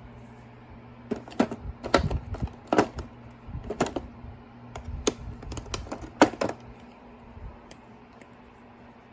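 Snap-on pliers being handled: a string of sharp, irregular metal clicks and clacks, loudest about two, three and six seconds in, then stopping.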